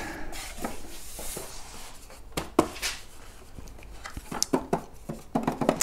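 Light clicks and knocks of an electric unicycle being handled on its stand, scattered through the second half.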